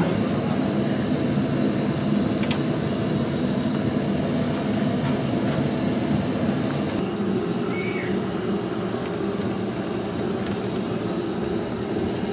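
LPG gas burner under a large aluminium cooking pot, burning steadily with a constant low rushing noise that holds the same level throughout.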